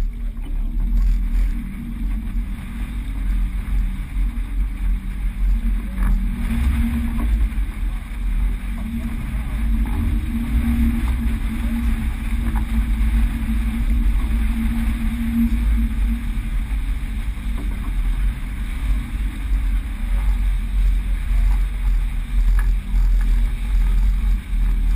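Steady low rumble aboard a sailboat under way: wind buffeting the microphone over the rush of water along the hull.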